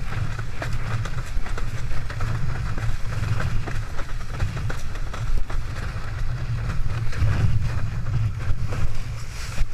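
Wind buffeting the microphone over the sound of a windsurf board planing fast across choppy water, with many small slaps as the hull hits the chop.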